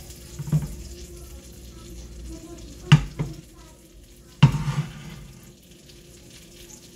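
Faint sizzling of buttered bread frying in a pan, broken by a few sharp knocks; the loudest come about three seconds and four and a half seconds in.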